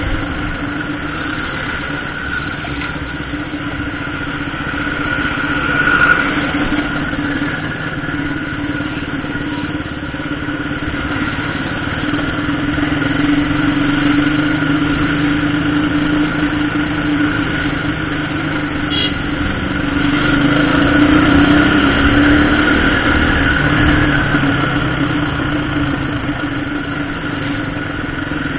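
Motorcycle engine running steadily at low speed with a constant hum. Its note shifts briefly about two-thirds of the way through.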